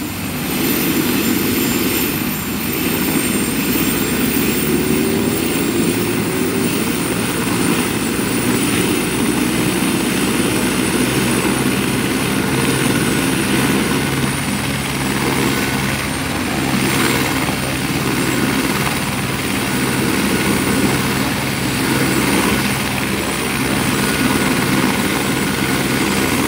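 Helicopter running on the ground: a steady rotor-and-engine drone with a constant high whine over it.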